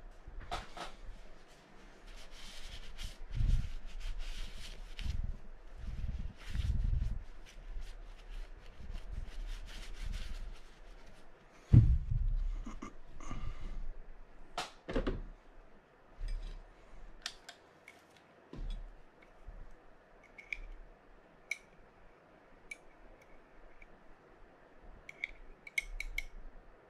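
Handling noise from a Penn Senator 113H reel being serviced on the bench: small parts and hand tools giving scattered clicks, rubs and scrapes. A louder knock comes about 12 seconds in, and there are lighter clicks near the end.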